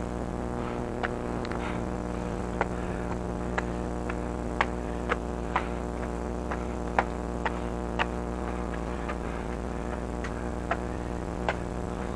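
Steady electrical hum in the recording, made up of several steady low tones, with light clicks at irregular intervals about one or two a second.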